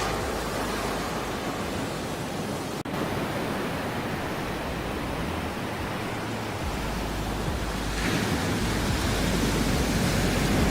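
Ocean surf washing steadily, with a brief dropout about three seconds in, then swelling louder about eight seconds in.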